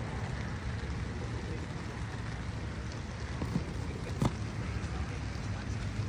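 Steady patter of rain, with a couple of light plastic clicks a little after the middle as a boxed diecast car is handled and set back on the table.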